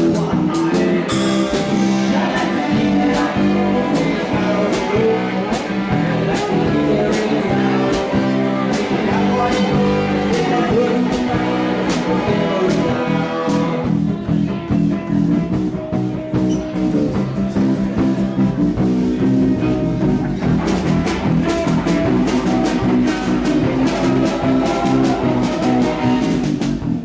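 Band playing live: guitar over bass with a steady beat of sharp strikes, an instrumental passage with no clear vocal. The high end drops back for a few seconds around the middle before the full sound returns.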